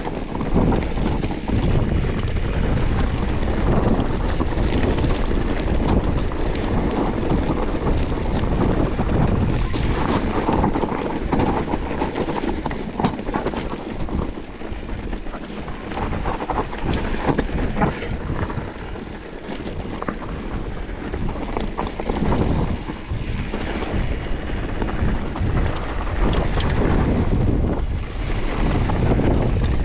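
Wind buffeting the camera microphone: a loud, uneven rumble that rises and falls, with a few sharp knocks through it.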